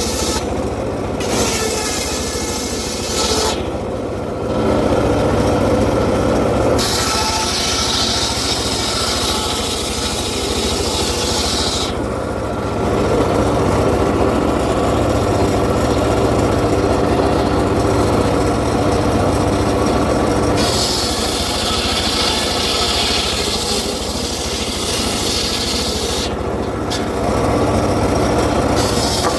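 Circular saw cutting acacia wood over a steady low running hum. The rasping cut grows and fades in stretches of several seconds as the blade bites and eases.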